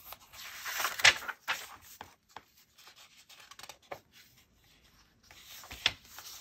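Paper pages of a handmade junk journal being turned by hand: a dry rustle and slide of paper ending in a sharp flick about a second in, then quiet handling, and another page turn with a flick near the end.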